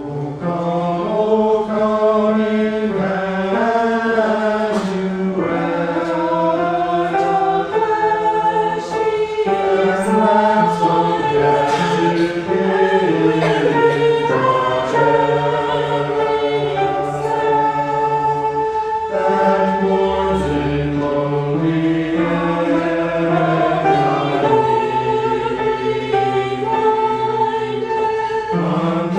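A choir singing in harmony with held notes, a prelude in a church service's music.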